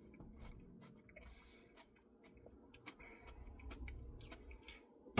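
Faint eating sounds from ice cream being eaten: scattered small clicks and soft mouth noises, a little louder for a moment near the end.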